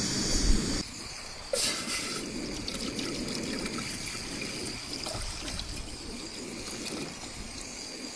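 Pot of water coming to the boil on a gas canister camp stove, a steady bubbling and trickling hiss.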